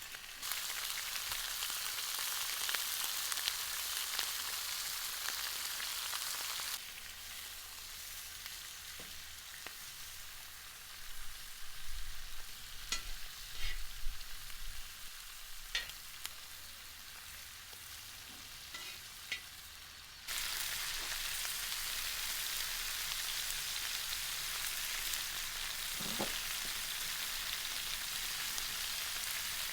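Meat frying and sizzling loudly in hot fat. About seven seconds in it drops abruptly to a softer sizzle with scattered utensil clicks and scrapes, then the loud sizzling returns abruptly about twenty seconds in.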